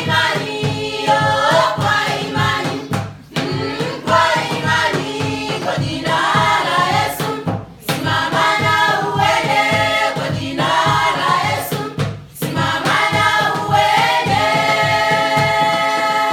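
A choir singing a song with backing music, ending the phrase on a long held chord near the end.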